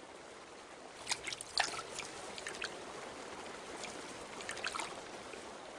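River water flowing over stones: a steady gentle rush with small trickling drips, clustered about a second in and again around four to five seconds in.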